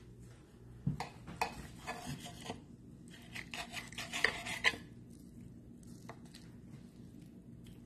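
Steel knife and fork cutting through a cooked steak on a plate: the blade scrapes and the cutlery clinks against the plate in two spells during the first five seconds, then it goes quieter.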